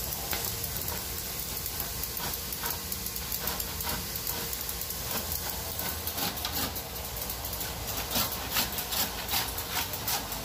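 Hand saw cutting through timber: quick, even rasping strokes, about three a second, starting about halfway in over a steady background hiss.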